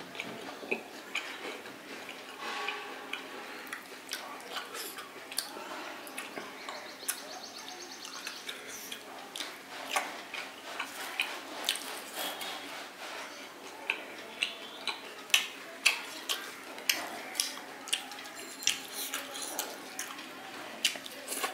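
Close-miked eating sounds: chewing with many short wet mouth clicks and lip smacks, coming more often in the second half.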